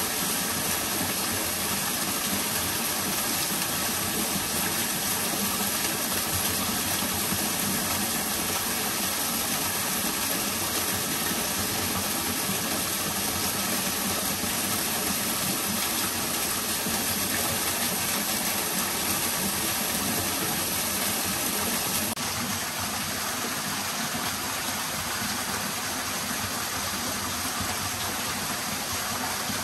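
Steady rushing of a forest stream over rocks, with white water close by. The rushing drops a little in level about three-quarters of the way through.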